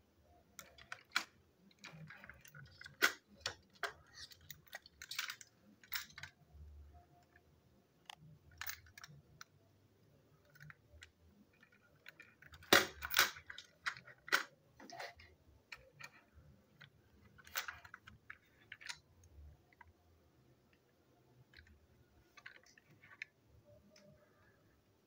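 Irregular clicks and light knocks of plastic toy train engines being handled and set down on a tabletop, with a louder cluster of knocks about halfway through.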